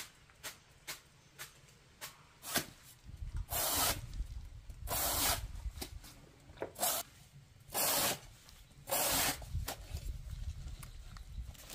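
A series of rough rasping scrapes, each about half a second long and five in all, with small knocks and taps between them.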